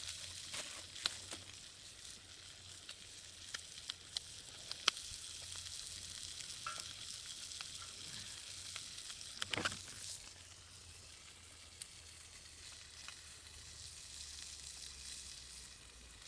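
Chicken skin and bean sprouts sizzling in a frying pan over a small wood fire: a steady hiss with scattered small pops, a sharper one about nine and a half seconds in.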